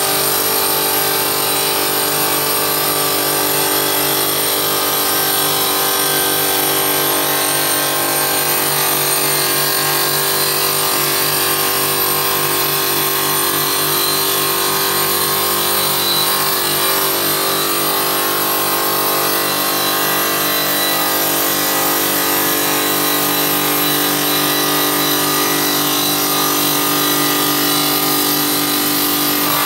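Stone-cutting machine running steadily, a constant loud whine made of several steady tones that does not change in pitch or loudness.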